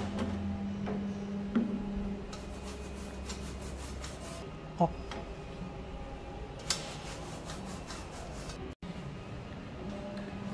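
Filter panel of a CW-5200 industrial water chiller being pried off and handled: rubbing and scraping with a few sharp clicks, over a steady low hum. The sound drops out for an instant near the end.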